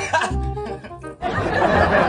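A young man chuckling and laughing over background music with a steady bass line. About a second in, the music and laughter cut off abruptly and a loud, even rushing noise takes over.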